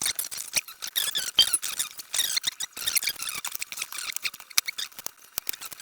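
Cardboard carton and packing material being handled while the replacement laptop LCD panel is unpacked: a continuous run of crackling, clicking and squeaking.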